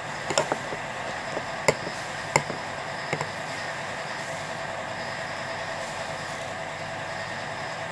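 A few light clicks and knocks of kitchenware in the first three seconds or so, as rice is pressed into a small bowl, over a steady faint room hum.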